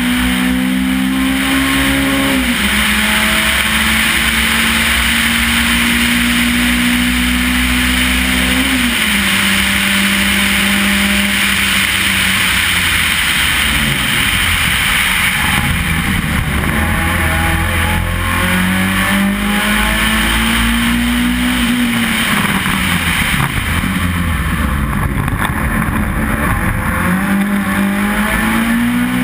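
Race car engine heard from inside the cabin, pulling hard under full throttle: its note climbs steadily for several seconds, then drops sharply at each gear change, with a stretch of lifting off and downshifting near the middle. Wind and road noise run underneath.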